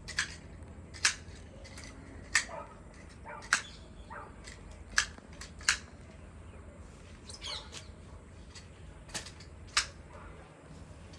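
Hand pruning shears snipping through shrub twigs, a sharp snip roughly once a second, irregularly spaced.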